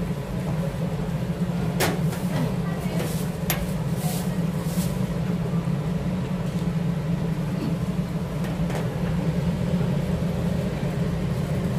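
Steady low mechanical hum with a few sharp clicks and clatters about two and three and a half seconds in.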